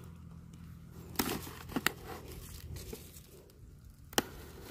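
Crinkling rustle of a bag being handled, with a few sharp crackling clicks over a low steady hum.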